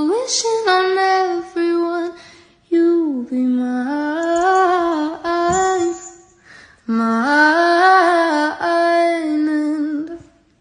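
A woman's voice humming a slow, wordless melody alone, with no accompaniment, in three phrases with short pauses between them.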